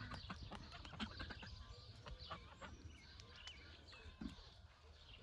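Geese pecking at feed and water with their bills: faint, irregular clicks and taps, with faint bird calls behind.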